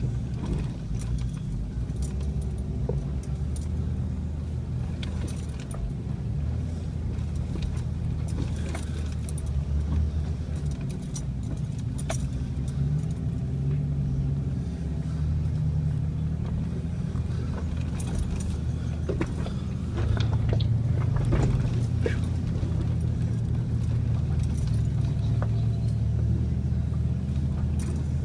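Vehicle engine running low and steady, heard from inside the cabin while crawling over rocks at low speed, with frequent rattles and sharp clicks from the jolting; the engine gets louder about two-thirds of the way through.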